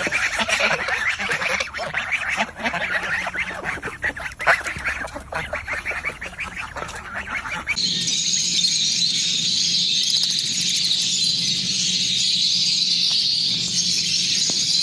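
A flock of domestic geese honking and calling over one another. About eight seconds in it cuts abruptly to a steady, dense, high-pitched chatter.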